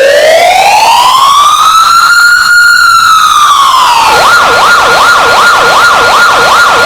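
Loud electronic siren: one slow wail rising and falling, then switching about four seconds in to a fast yelp of about two and a half sweeps a second.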